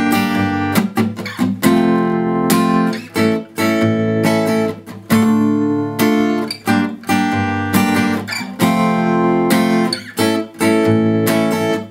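Acoustic guitar strummed across all strings in a down, down, up, up, down, down, down, up pattern through the chords Dm, Gm, F and A. Short breaks between groups of strokes come where the fretting hand briefly lets the chord go.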